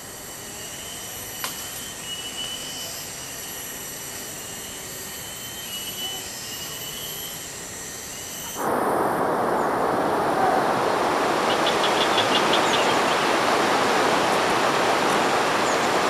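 Forest insects buzzing in steady high, slightly wavering tones. About eight and a half seconds in, this cuts abruptly to a much louder, steady rushing hiss, with a short quick run of ticks partway through.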